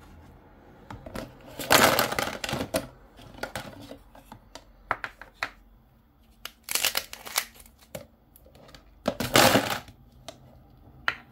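Hard objects being handled: a string of clicks and clattering, in three louder bursts, over a faint steady low hum.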